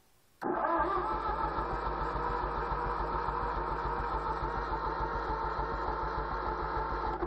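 John Deere 1010 crawler's gas four-cylinder engine cranking over on its starter with an even chugging beat for about seven seconds without catching, then stopping suddenly. It is being choked by hand and draws suction but gets no gas, which the owner thinks may be a plugged fuel supply.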